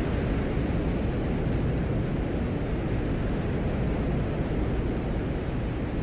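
Audio from a 1982 Soviet Venera lander's microphone on the surface of Venus: a steady, low rumbling noise with a hiss over it.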